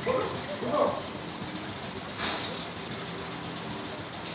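A sanding pad rubbed back and forth by hand across a plastic headlight lens, abrading off the yellowed, oxidised surface.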